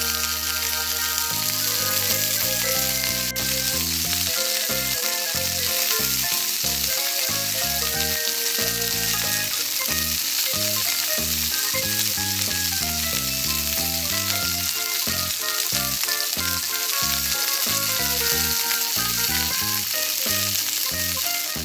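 Frying sizzle, a steady hiss like food in hot oil, over a simple background tune; the sizzle cuts off suddenly at the very end while the tune carries on.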